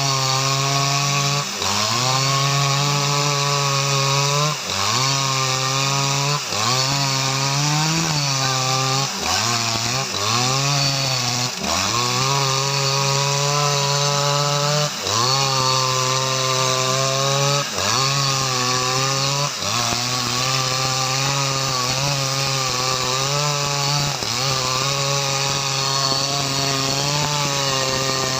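Jonsered 2095 Turbo 93.6 cc two-stroke chainsaw running at full throttle while cutting teak wood. The engine note sags and climbs back every second or two as the chain bites and the saw bogs under load.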